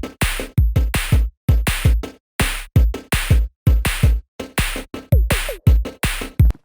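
Electronic drum-machine beat: a fast run of kick and snare hits, about three a second, with a short falling pitch glide about five seconds in.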